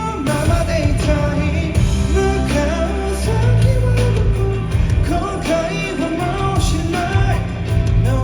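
Upbeat pop song with a male lead vocal over a loud band backing with heavy bass, played through a concert hall's PA during a sound check.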